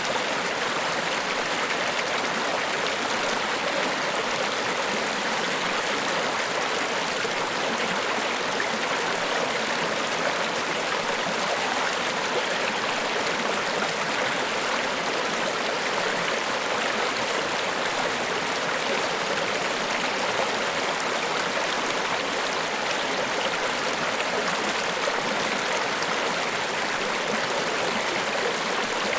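Water of Niagara Falls pouring steadily, an even rushing noise without breaks or changes.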